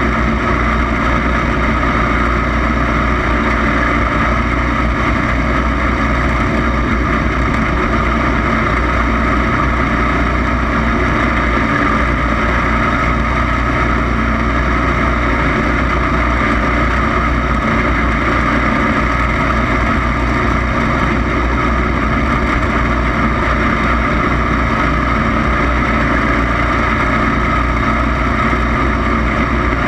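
Racing lawn mower engine running loud and unbroken at a steady pitch.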